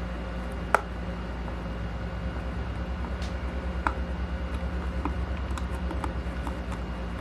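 A screwdriver tightening small screws into a plastic housing: scattered light clicks and taps over a steady low hum with a fast pulsing.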